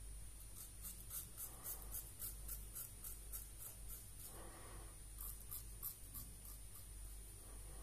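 Merkur 39C slant-bar safety razor with a Gillette 7 O'clock Super Platinum blade cutting lathered stubble: faint, dry scraping strokes in quick succession, about three to four a second, pausing briefly a little past the middle.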